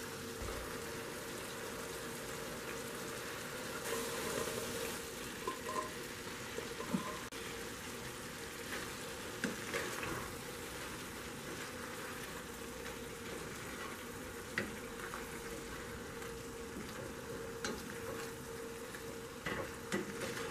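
Penne and zucchini-tomato sauce sizzling in a stainless steel skillet while being stirred with a wooden spoon, with a few light knocks of the spoon against the pan. A steady hum runs underneath.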